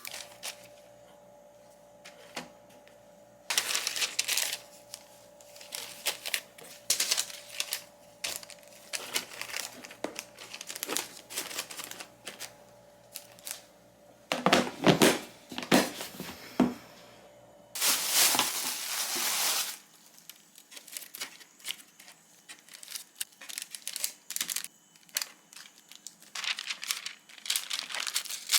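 Plastic packaging crinkling and rustling, with scattered clicks and knocks of things being handled and set down, and a longer rustle about two-thirds of the way through.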